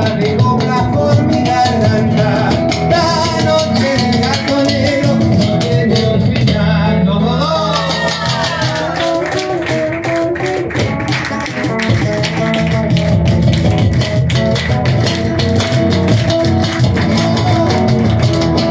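Live Latin American folk-style band playing an instrumental passage: acoustic guitar with a bombo legüero and a cajón. The percussion grows busier past the middle.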